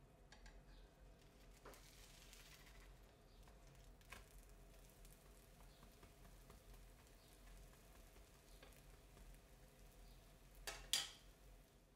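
Faint sizzling of pancake batter frying in a pan, with a few light utensil clicks and a sharper clatter near the end.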